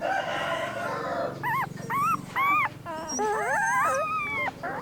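A dog whining and howling: three short, arching yelp-like whines, then from about three seconds in a longer howl that rises in pitch.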